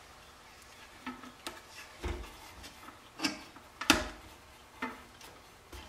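Scattered light clicks and knocks, about six of them with the loudest near the middle, as a rubber vacuum line is pushed onto the ports of a furnace pressure switch and draft inducer and the parts are handled on a workbench.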